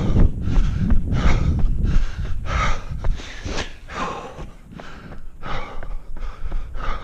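A runner breathing hard and rhythmically, about three breaths every two seconds, mid-way through a hard-paced 5k run. Wind rumbles on the microphone for the first couple of seconds, then eases.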